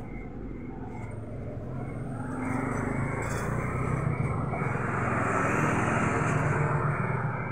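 A motor vehicle passing close by, its engine and tyre noise rising over a few seconds and then easing off near the end.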